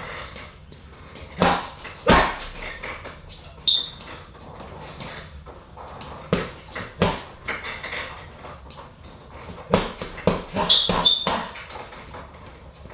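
Punches landing on a hanging Everlast heavy bag in short combinations with pauses between them, the hardest thuds about two seconds in and near the end. A few brief high squeaks come with some of the punches.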